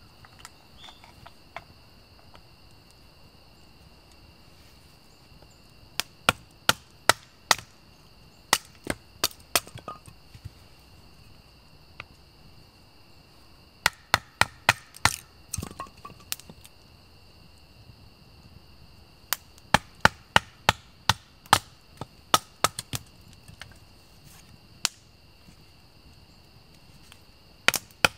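Wood being chopped: sharp strikes on wood in runs of about four to eight, at roughly two or three a second, with pauses of a few seconds between runs.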